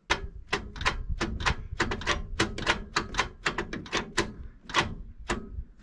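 1975 Ford Granada's starter solenoid chattering as the key is held to start: a rapid, irregular run of clicks, about five a second, with no cranking. Too little current is reaching the starter, which the crew puts down to a weak battery or, more likely, bad cable connections.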